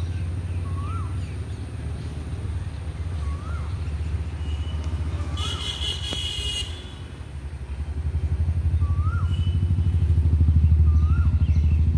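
A motorcycle engine running steadily with a low pulsing rumble, louder over the last few seconds. A bird's short rising-and-falling chirp repeats about every two seconds, and a brief horn-like blare sounds about halfway through.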